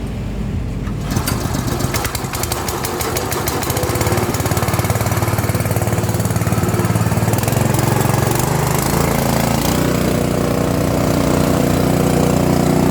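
Small single-cylinder four-stroke petrol engine running steadily, driving a Mahkota KD-400S rice huller. The sound builds over the first few seconds, and the engine note shifts about two-thirds of the way through.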